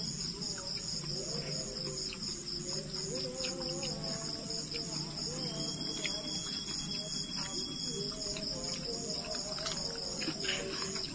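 Night insects, crickets, chirring steadily in fast pulsed high trills, with a few small clicks near the end.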